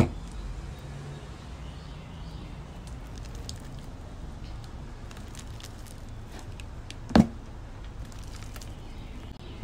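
Hands squeezing and kneading thick glitter slime in a plastic tub, with many small sticky clicks and two louder sharp snaps, one at the start and one about seven seconds in.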